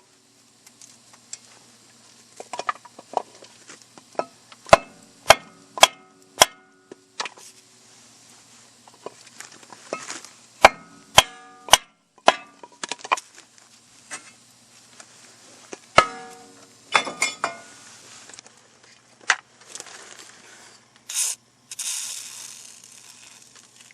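Hammer blows on a 1999 Jeep Cherokee's front brake rotor to knock it off the hub: sharp metal strikes, each ringing briefly, many in quick runs of three or four. A short hissing rush comes near the end.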